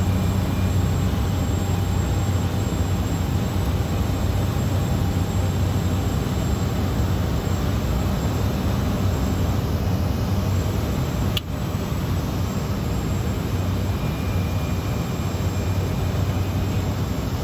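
Steady drone of the Cessna 208B Grand Caravan's single turboprop engine and propeller in flight, heard as a low, even hum with a rushing noise over it. A brief click breaks it once, about two-thirds of the way through.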